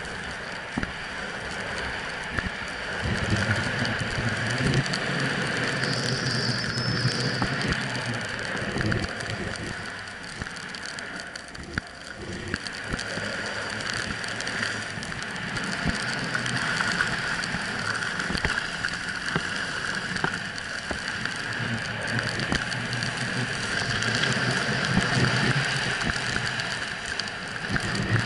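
A snowboard sliding and scraping over fresh snow on a downhill run, a continuous hiss that swells and fades as the rider turns, mixed with wind rushing past the pole-mounted action camera.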